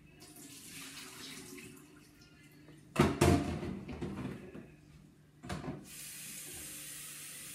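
Kitchen tap running water at the sink to fill an electric kettle with cold water, with a loud clunk about three seconds in and a shorter knock a couple of seconds later, then a steady stream of running water.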